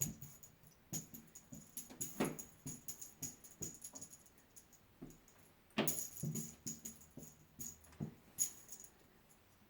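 Small metal bell jingling in irregular short shakes, with soft taps and knocks in between. The loudest jingles come at about 2 and 6 seconds in.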